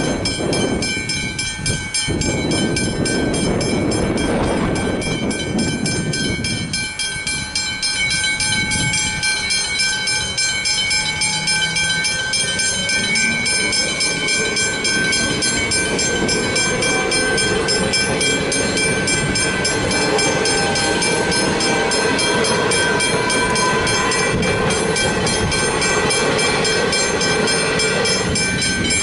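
Westinghouse Hybrid level-crossing bells ringing continuously in rapid, evenly spaced strikes while the boom gates are down. A suburban electric train approaches and rumbles through the crossing, its noise building from about halfway and loudest near the end.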